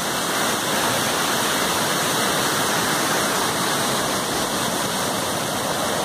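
Waterfall's steady rushing noise of falling water, with no pauses or changes.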